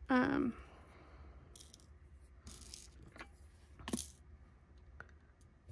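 Small hard clicks and rustles of rhinestones in a plastic tray and against the tumbler as they are picked up and placed with a pick-up pencil, with a louder clatter about four seconds in.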